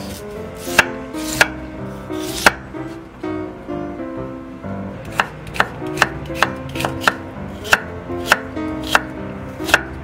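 Chef's knife slicing a carrot on a wooden cutting board: a few sharp knocks at first, then a steady run of about two cuts a second from about halfway.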